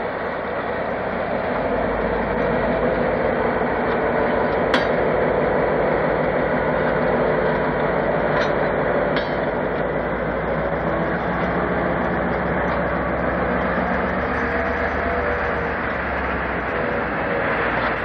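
A train passing slowly: a diesel locomotive's engine running steadily as it hauls a line of passenger coaches by. The wheels give a few sharp clicks over the rail joints.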